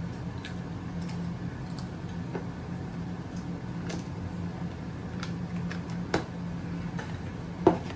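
Handling of a cardboard Pringles can and its plastic lid: scattered light taps and clicks, then one sharper knock near the end, over a steady low hum.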